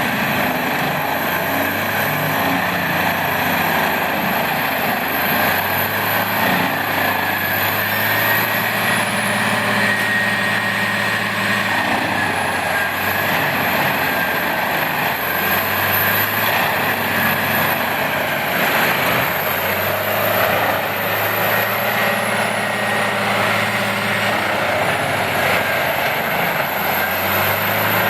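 Wood chipper running steadily, a loud engine drone under a wide, noisy shredding sound, with a high whine above it.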